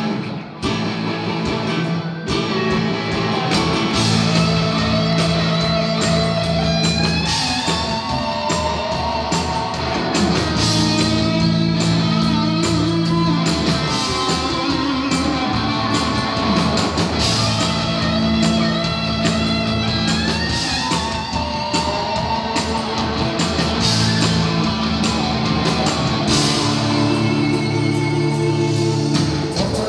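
A live rock band playing, with a lead electric guitar out in front over bass, drums and keyboards.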